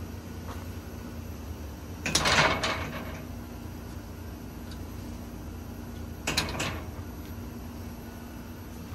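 Slatted louvre screen doors around an outdoor air-conditioner unit being pushed shut by hand, with two short knocks, a louder one about two seconds in and another about six seconds in, over a steady low hum.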